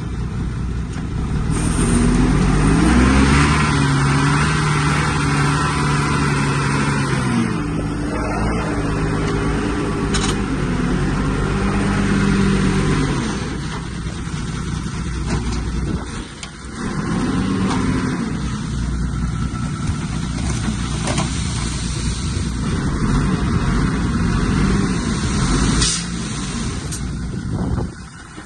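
Heavy diesel earthmoving engine working under load, its pitch rising and falling as it revs up and eases off, with a couple of sharp knocks.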